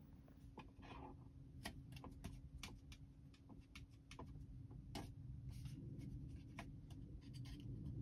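Plastic drink bottle pushed around by hand in a JOWUA silicone cup-holder insert in a Tesla centre console. Only faint, scattered light taps are heard and no rattle: the one-piece silicone insert has no spring or moving parts to buzz.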